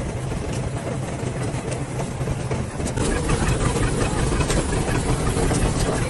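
Fishing boat's engine running steadily with a low drone, getting a little louder about halfway through.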